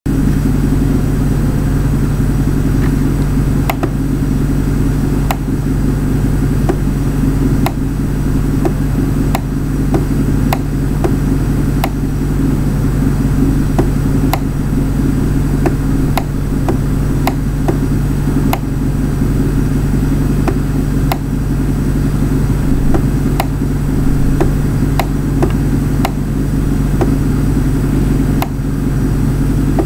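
A loud, steady low hum with faint clicks every second or so.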